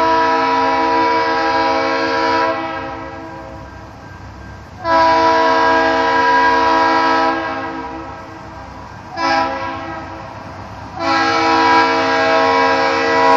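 Freight locomotive air horn sounding the long, long, short, long grade-crossing signal. The last long blast starts about 11 seconds in and is still sounding at the end.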